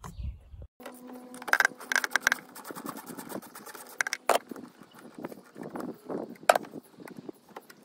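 Socket ratchet clicking and metal tools clinking while bolts on the top of the engine are undone to take off the inlet manifold. There is a quick run of ratchet clicks about two seconds in and a single sharp metallic clink later on.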